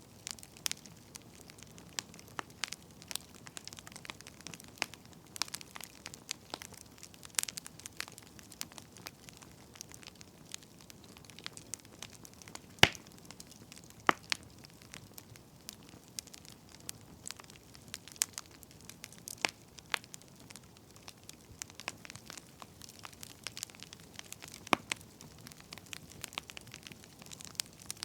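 Burning firewood crackling: irregular sharp pops and snaps over a faint steady hiss, the loudest pop about 13 seconds in.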